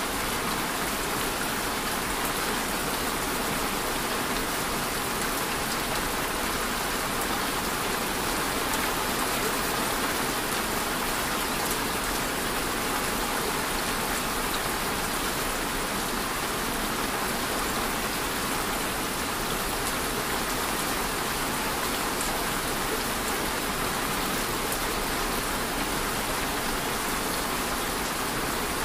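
Steady rainfall, an even hiss of rain without breaks or changes.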